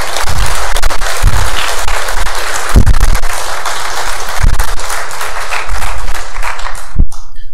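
Audience applauding: dense clapping that dies away just before the end, with a few dull low thumps under it.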